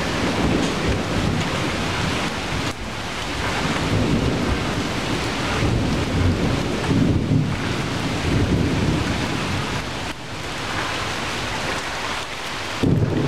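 Heavy rain falling steadily on tree leaves and branches, with a deep rumble underneath.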